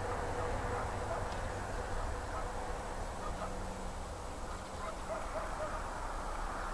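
Steady background hiss and low rumble with a faint hum, and a few faint short chirps about halfway through.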